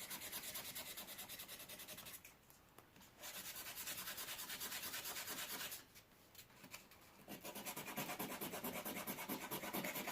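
Sandpaper rubbed by hand over a rusty steel knife blade in quick, even back-and-forth strokes, scrubbing the rust off. The strokes stop twice for a second or so.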